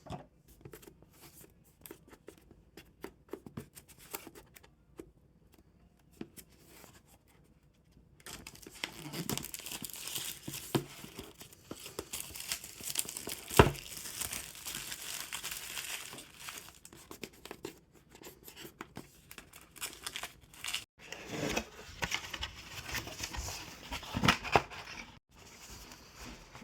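Plastic shrink wrap being torn and peeled off a boxed multimeter, crinkling and crackling. A few light handling clicks come first, then the tearing and crumpling runs on, with a sharp snap about halfway through.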